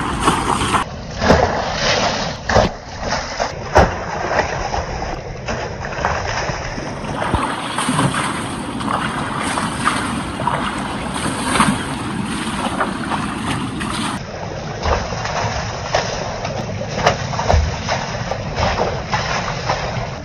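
River water splashing and sloshing as buckets of water are thrown over tractors standing in the shallows, with many short sharp splashes.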